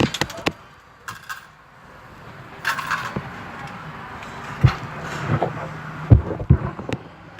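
Car idling with a faint steady hum, overlaid by scattered knocks, clicks and short rustles, the loudest a few sharp thumps in the second half.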